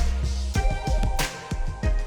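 Background music with a funky bass line, guitar and a steady drum beat.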